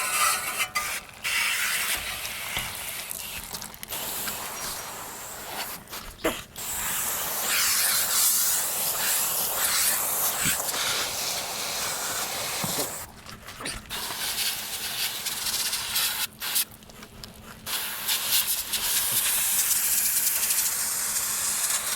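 Spray hissing against the fins of an air-conditioner condenser coil as it is sprayed down, stopping and starting several times.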